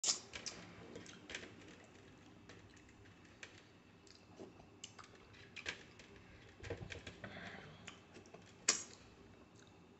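Eating rice and curry by hand: faint, irregular wet clicks and smacks from the mouth and fingers. A sharper smack comes at the very start and another near the end.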